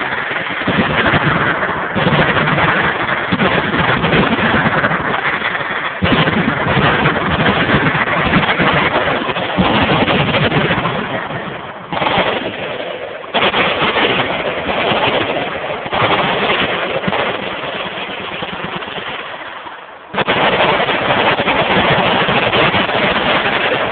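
Massed automatic gunfire from many machine guns firing at once: a dense, continuous stream of overlapping shots that swells up suddenly every few seconds as new guns join in.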